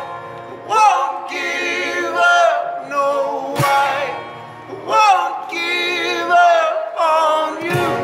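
Acoustic folk band playing live: several voices sing long wordless phrases together over a strummed acoustic guitar. A sharp percussive hit lands twice, about halfway through and near the end.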